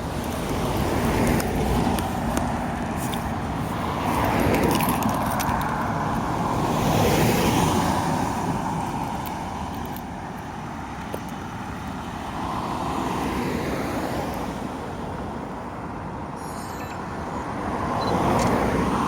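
Road traffic: several cars passing one after another, each swelling and fading.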